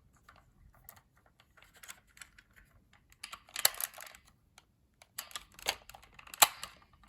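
Hard plastic parts of a vintage Kenner M.A.S.K. Switchblade toy clicking and clacking as they are moved by hand: scattered light clicks, then two busier runs of clatter in the second half, with the sharpest snap about six and a half seconds in.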